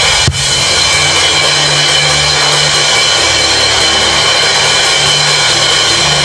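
A congregation praying aloud all at once, a dense steady wash of many voices, over soft worship music with held keyboard and bass notes.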